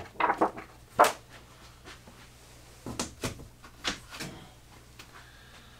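A few light knocks and clicks, with some rustling, as model-airplane kit parts are picked up and set down on a workbench.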